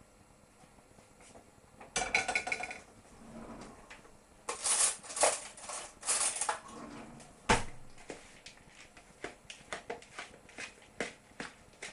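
A spoon clinking and scraping against a mixing bowl as a crumble topping is stirred with melted butter. It starts about two seconds in, with a brief ringing clatter, then several loud scraping strokes, a sharp knock, and a run of lighter taps and scrapes.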